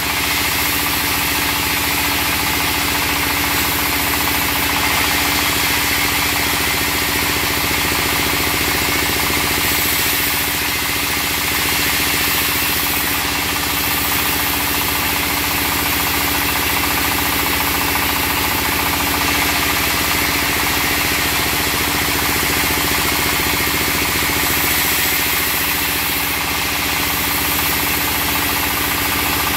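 Vertical band sawmill running steadily, powered by a stationary engine, as a log is fed slowly into the blade, sawing.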